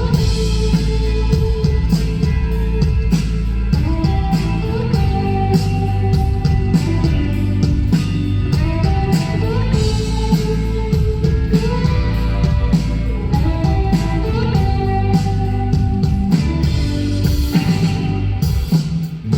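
A rock band playing live and amplified: an electric guitar melody over bass and drums, in an instrumental stretch of the song.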